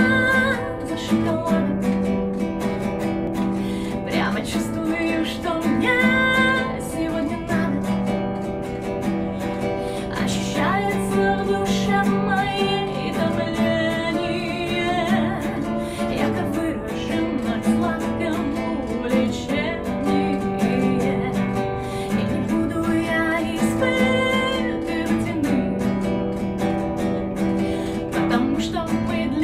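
A woman singing in Russian to her own strummed classical guitar chords.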